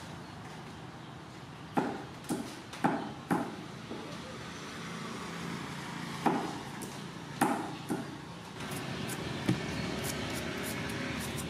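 Cleaver chopping pumpkin on a wooden chopping board: sharp knocks, four in quick succession about two seconds in, then a few more spaced out.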